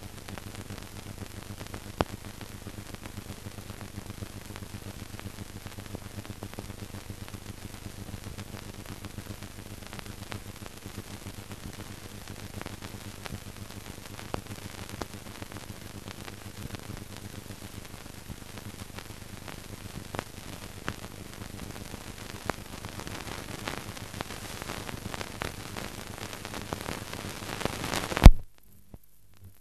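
Old optical film soundtrack noise: a steady hiss with a low hum and scattered clicks and crackles. Near the end the hiss swells to one loud pop, and then it cuts off abruptly.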